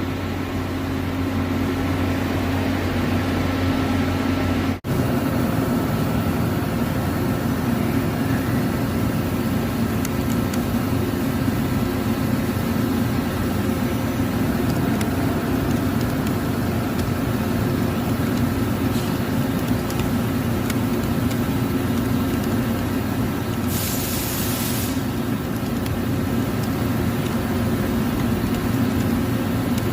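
CNC lathe running with a steady machine hum and several constant tones. A short burst of hiss sounds once, late on.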